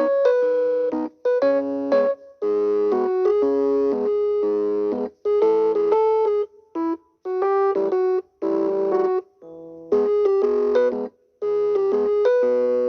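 Background music: a bright keyboard tune in short phrases that stop abruptly and start again every second or two.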